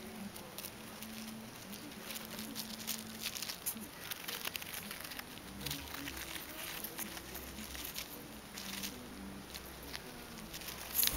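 A dwarf hamster rustling and scratching through shredded paper bedding: irregular small crinkles and light scrapes, with one sharper knock near the end.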